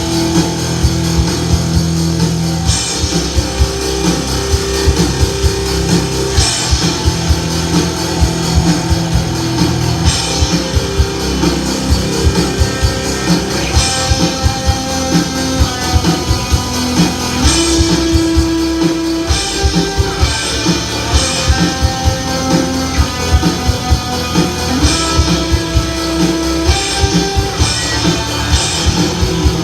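Rock band playing an instrumental passage: guitars over a drum kit with a steady, busy beat.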